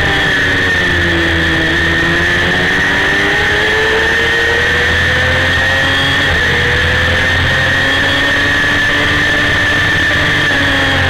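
Honda CBR250RR's high-revving 250 cc inline-four racing engine, heard from a camera mounted on the bike over constant wind rush. The engine pitch falls for about two seconds, then climbs steadily as it pulls hard, and stays high near the end.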